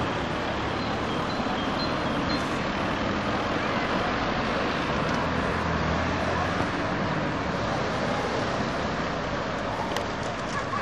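Steady street traffic noise, a continuous hiss and rumble of passing cars, with the low rumble a little stronger around the middle.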